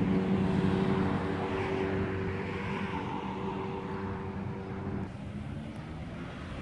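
A car's engine running as the car passes slowly, its steady note fading away, thinning out about five seconds in.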